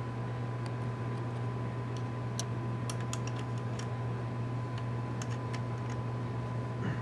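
A running Tektronix Type 564 storage oscilloscope gives a steady low electrical hum with a thin steady high whine over it. A few faint ticks are scattered through the middle.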